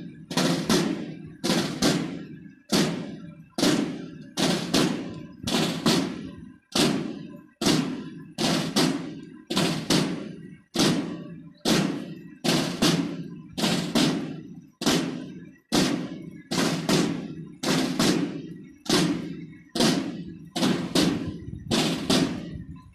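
A drum struck in a slow, even beat, about three strikes every two seconds, each strike ringing out briefly before the next. It is the kind of beat played for honours to the flag.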